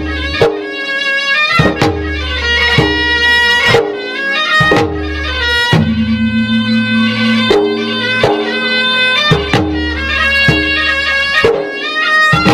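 Traditional Makassar gendang adat music: a reedy, shawm-like wind instrument plays a sustained melody, changing note every second or so, while drums strike sharply and irregularly under it.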